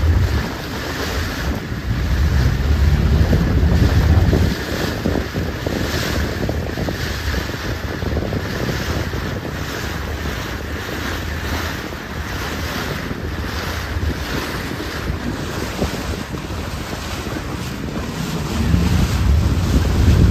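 Wind buffeting the microphone over a steady wash of sea and boat noise. The heaviest gusts rumble from about half a second in to four seconds in, and again near the end.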